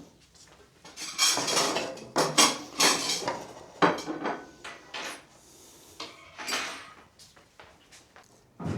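Dishes and cutlery clattering and clinking in a busy run of knocks, then a few separate sharp clinks and knocks with quiet gaps between.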